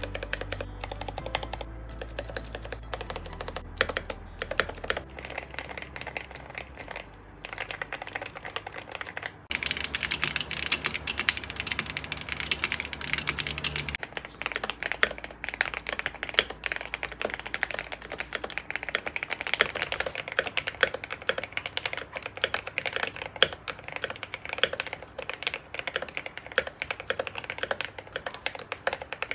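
Typing on a Gamakay K87 mechanical keyboard with Gateron Yellow switches and PBT keycaps: a steady stream of key clacks, faster and denser from about ten to fourteen seconds in.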